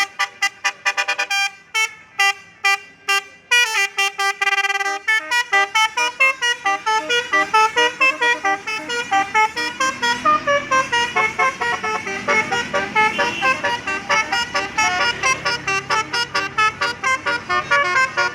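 Bus 'telolet' horn, a set of musical horns, playing fast runs of short pulsed notes that climb and fall like a tune. A bus engine is heard underneath from about halfway through.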